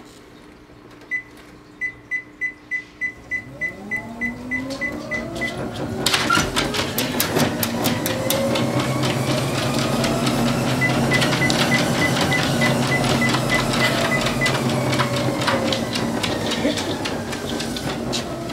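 Electric treadmill starting up: a run of quick beeps from the console, then the motor's whine rising in pitch. From about six seconds in, a dog's rapid footfalls sound on the moving belt. A second run of beeps comes about halfway, and the motor pitch eases down again near the end.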